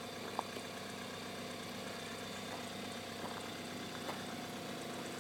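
Diesel engine of a 15-inch gauge miniature locomotive idling steadily, with one short sharp click about half a second in.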